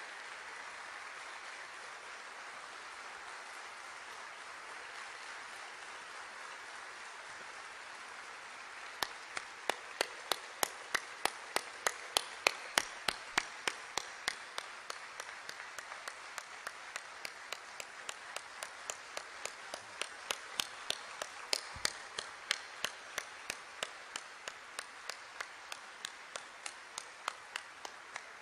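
Audience applause, a steady patter that about nine seconds in turns into rhythmic clapping in unison at about three claps a second.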